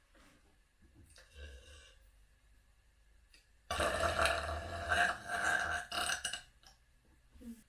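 One long burp, about three seconds, starting a little after halfway through and loud against the quiet before it.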